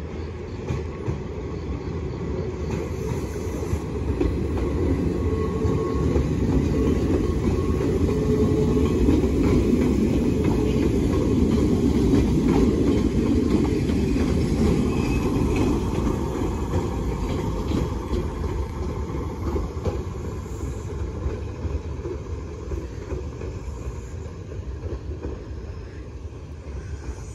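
Nagano Electric Railway electric train running past on the tracks, its rumble building to a peak about halfway through and then fading as it moves away.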